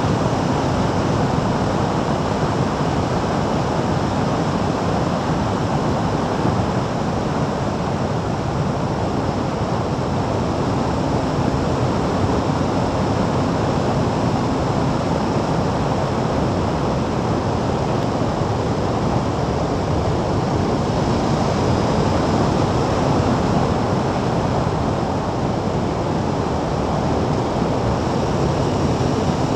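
Steady wind noise rushing over the microphone at road speed, with a vehicle's drone beneath it.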